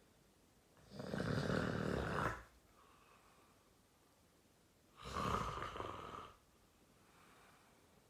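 A man snoring loudly in his sleep: two long, rasping snores about four seconds apart, each followed by a fainter, shorter sound.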